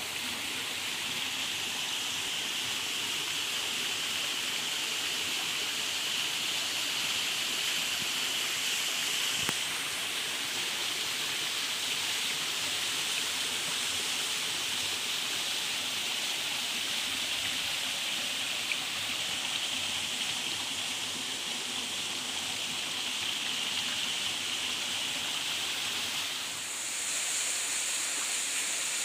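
Steady rush of water from a small rocky stream and waterfall. Near the end the sound changes and turns brighter and hissier.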